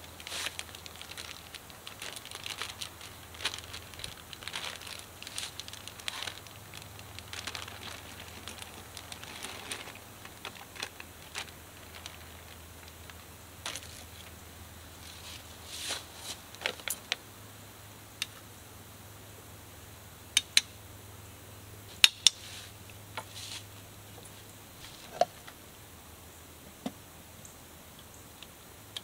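A clear plastic bag crinkling and rustling as it is handled, followed in the second half by a scattering of sharp clicks and clinks as the metal lid of the can cooker is fitted on.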